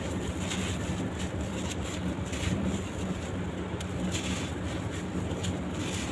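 Crumbly charcoal-sand-cement blocks being crushed and broken apart by hand: scattered short crunches and crackles over a steady low hum.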